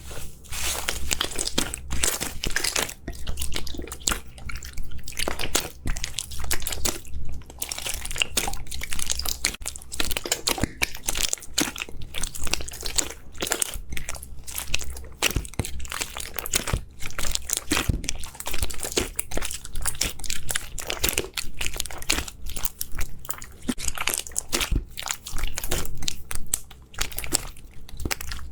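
Slime being pressed and squeezed by hand, giving a dense, continuous run of crackling clicks and pops.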